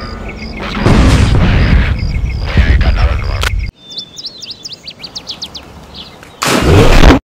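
Loud, rumbling noise that cuts off abruptly just under four seconds in, leaving small birds chirping. Near the end a short, loud burst of noise cuts off suddenly.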